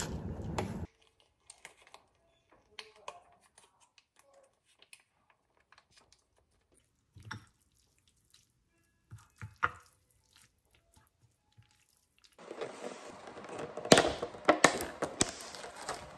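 Pot of noodles boiling on the stove, cut off in under a second. Then faint scattered clicks and soft wet sounds as chopsticks mix sauced noodles in a ceramic bowl. About three seconds before the end, a plastic clamshell salad container crackles and clicks loudly as it is pried open.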